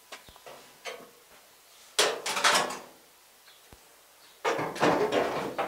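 A few light clicks and knocks, then scraping and rattling of sheet steel, about two seconds in and again from about four and a half seconds: the VW Caddy's cut-off steel front clip being handled and lowered into place.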